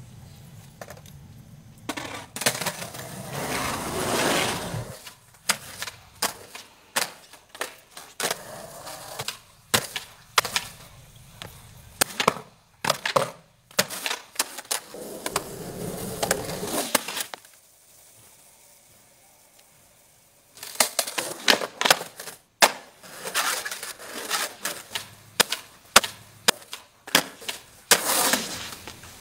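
Skateboard wheels rolling over asphalt, then the deck clacking as the board is popped, flipped and landed in flatground tricks: many sharp clacks, with two stretches of rolling and a quiet pause in the middle.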